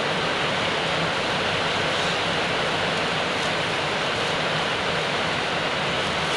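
Steady, even hiss with no change in level and no distinct events.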